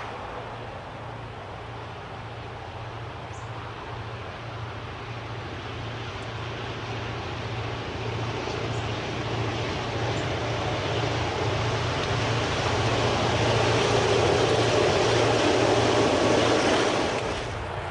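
Several T-class diesel-electric locomotives working in multiple, pulling a freight train with a steady engine drone that grows louder as they approach and pass. The rumble of the loaded wagons rolling by follows. The sound cuts off suddenly near the end.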